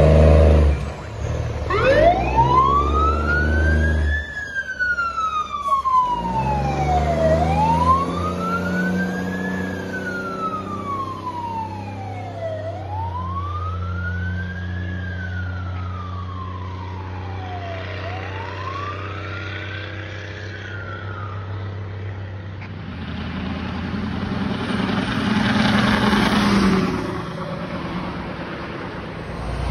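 Fire truck siren winding up from low and wailing slowly up and down, about four rises and falls roughly five seconds apart, then fading out after about twenty seconds. The truck's engine rumbles steadily underneath, and a swell of noise rises and falls near the end.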